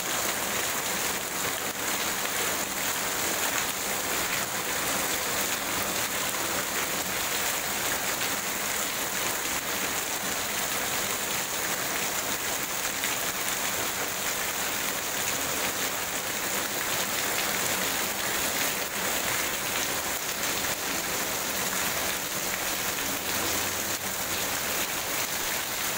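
Heavy tropical downpour: a steady, even hiss of rain pouring down, with runoff spilling off a roof edge.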